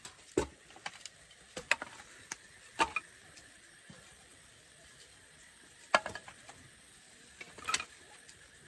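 Irregular sharp clicks and knocks: several in the first three seconds, a pause, then a loud knock about six seconds in and a short cluster near the end.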